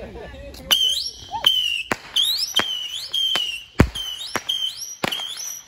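A whistling firework shooting off a rapid string of shots, starting about a second in. Each shot is a sharp crack followed by a shrill whistle that rises in pitch and then holds, at roughly two shots a second.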